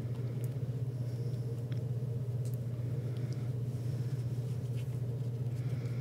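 Steady low hum, with a few faint soft taps of a paintbrush dabbing acrylic paint onto a stretched canvas.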